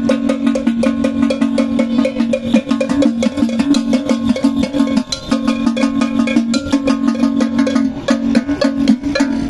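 Fast traditional percussion music for a masquerade dance: quick, evenly repeated strikes with a steady held tone underneath, which drops out briefly about five seconds in.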